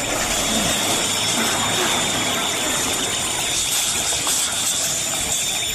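Street ambience in the aftermath of a huge explosion: a steady rushing noise with a continuous thin high-pitched tone running through it and no distinct bangs.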